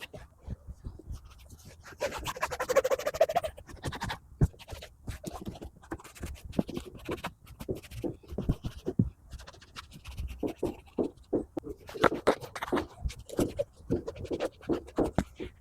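Scrubbing and scraping on car interior surfaces during detailing, with a burst of dense scrubbing about two seconds in and irregular clicks and knocks throughout.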